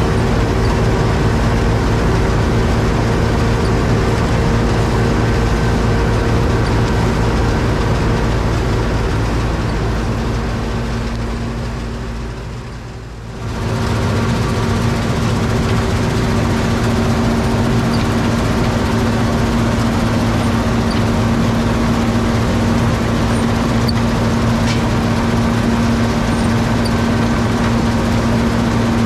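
John Deere 7720 Turbo combine harvesting wheat: its 466 cubic inch six-cylinder engine running steadily under load with the threshing machinery. About halfway through the sound sinks for a few seconds, then returns abruptly.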